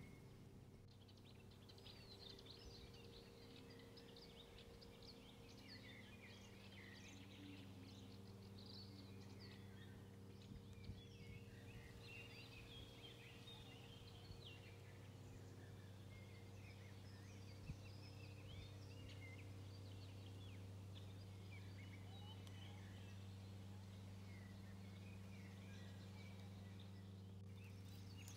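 Faint birdsong, many small birds chirping and trilling throughout, over a steady low hum, with a couple of soft clicks.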